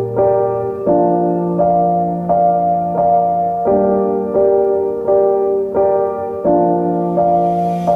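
Background music: a piano-like keyboard plays a steady, repeating pattern of held notes, with a new note about every 0.7 seconds. A rising hiss comes in near the end.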